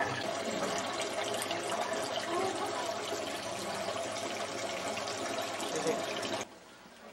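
Water running and bubbling in a fish tank holding live catfish, a steady rush that cuts off suddenly near the end.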